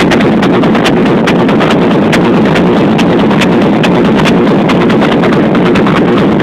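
Music played very loud through two Selenium Tornado 1100 RMS car-audio speakers driven by a Taramps 2.7k amplifier. The sound is dense and heavy in the low mids, with sharp percussive hits and a level that stays steady throughout.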